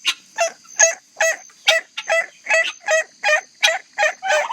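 Domestic fowl calling over and over in a steady, rapid series of harsh, honking notes, about two to three a second, with a second bird joining in near the end.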